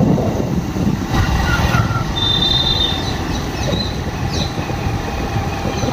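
Wind rumbling on the microphone and the running noise of a vehicle moving along a road. A brief high, steady whistle-like tone sounds about two seconds in.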